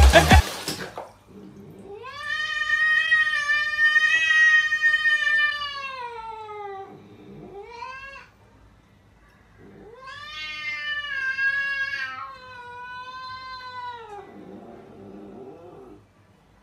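Cat yowling: two long, wavering calls of several seconds each that drop in pitch at the end, with a short rising call between them and a fainter call near the end.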